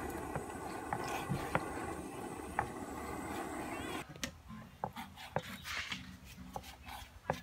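Kitchen knife cutting raw beef innards on a wooden cutting board: scattered sharp knocks of the blade striking the board. For the first four seconds they sit over a steady rumbling noise that cuts off suddenly, after which the chopping knocks come quicker and stand out more clearly.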